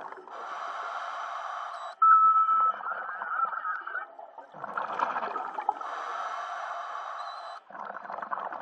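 Scuba diver breathing through a regulator underwater: two drawn-out inhalations heard as a steady hiss, with a gurgling rush of exhaled bubbles between them that starts with a brief whistling squeal.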